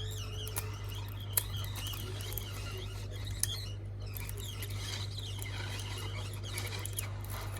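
A pointed back-glass removal tool scraping and chipping the cracked back glass of an iPhone X, giving thin wavering squeaks with a couple of sharp ticks of breaking glass, over a steady low hum.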